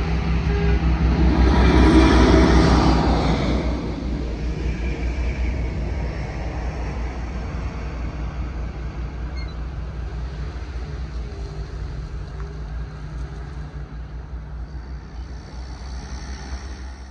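ST44 diesel locomotive (Soviet-built M62 type, two-stroke V12 diesel) passing over a level crossing. Its engine and wheel noise are loudest about two seconds in, then fade slowly as it moves away, the low pulsing engine note staying audible throughout.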